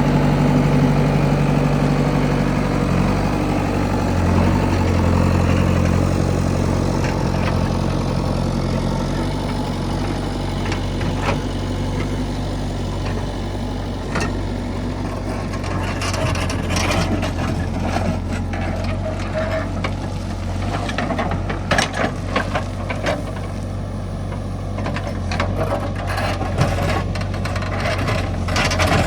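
Heavy machine's diesel engine running steadily, its note shifting a few times in the first ten seconds. From about halfway through, scattered sharp knocks and clatter sound over the engine.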